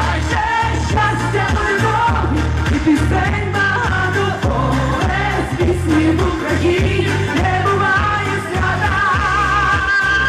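A pop song performed with a woman singing into a microphone over music with a steady, regular bass beat, heard through stage loudspeakers.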